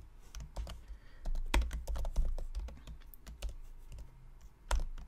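Typing on a computer keyboard: a run of uneven keystrokes, with a louder key strike about a second and a half in and another near the end.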